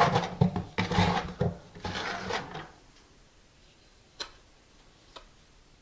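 Scraping and rubbing of hands-on tile-setting work, handling tile and thinset, for about two and a half seconds, then two light clicks.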